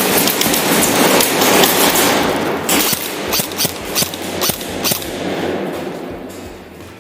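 Airsoft guns firing in quick, irregular shots, several a second, about midway through, then fading away. A loud rushing noise fills the first couple of seconds.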